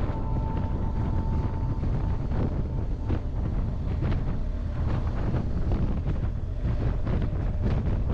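Steady, heavy wind buffeting on the microphone of a moving motorcycle, with rough gusts throughout.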